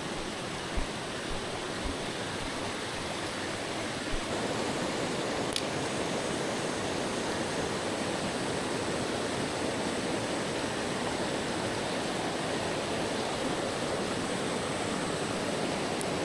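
Mountain stream water rushing over rocks, a steady hiss that swells a little about four seconds in, with a few soft low knocks before that.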